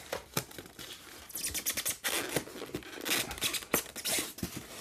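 Packaging being handled by hand: rustling, scraping and light knocks of a cardboard box and its foam packing tray being dug through, with irregular crinkles and clicks that get busier partway through.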